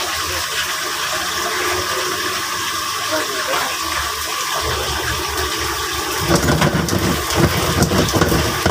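Steady rushing hiss of a gas range with a wok of chili crab sauce on the heat; from about six seconds in, a spatula knocks and scrapes as the crab is stirred in the wok.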